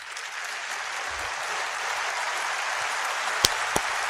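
Congregation applauding steadily, with a couple of sharper single claps standing out a little past three seconds in.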